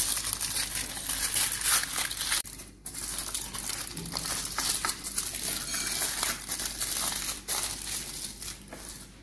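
Aluminium foil crinkling and crackling as it is rolled and folded by hand around a tortilla wrap, with a short pause about three seconds in.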